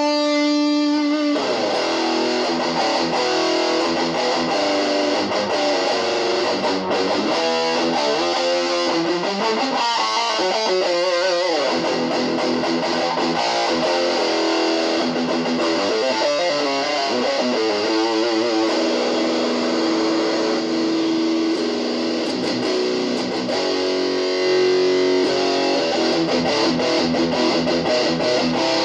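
Electric guitar played through a Boss DS-2 Turbo Distortion pedal into a Kalamazoo Model 2 amplifier: distorted held notes and phrases with bends and vibrato, the repaired pedal working.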